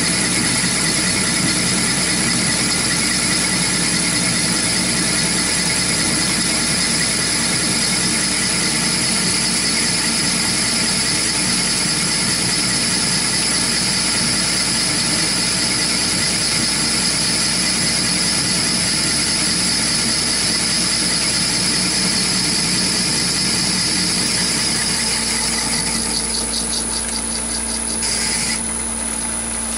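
Chinese mini lathe taking an interrupted cut in hard tool steel with a DCMT 070204 blue nano carbide insert: a steady, high-pitched cutting noise over the hum of the lathe's motor and gearing. The cutting noise fades about four seconds before the end, with one brief flare near the end.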